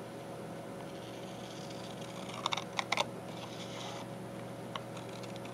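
Scissors snipping through thick paper paint-sample cards: a quick cluster of sharp snips about two and a half to three seconds in, with a papery rustle around them and a lighter snip near the end, over a steady low hum.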